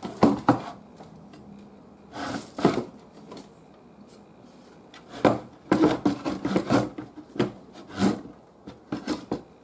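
Handling of a wooden-cabinet tube radio on a workbench: irregular knocks and short scraping rubs, in clusters about a second in, near the middle and toward the end.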